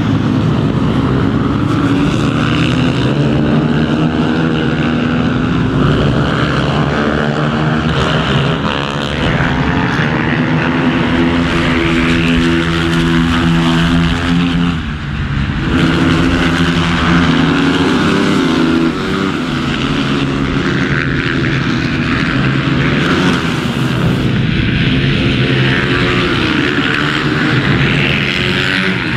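Supermoto race motorcycles running hard on track, their engines revving with the pitch climbing and falling repeatedly as the riders accelerate, shift and brake through corners. The sound dips briefly about halfway through, then picks up again.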